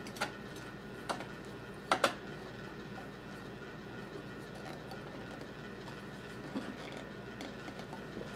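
Hand-threading a pressure gauge into a brass well-tank tee: a few sharp metallic clicks and taps, the loudest a quick pair about two seconds in, then quieter handling over a steady low room hum.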